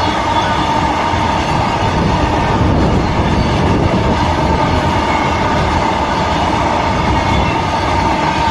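Freight train passing close by: a steady, loud rumble of wheels on the track with a steady high whine running through it.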